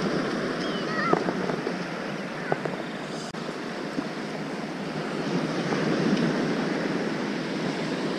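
Small waves breaking and washing up a sandy beach: a steady rush of surf.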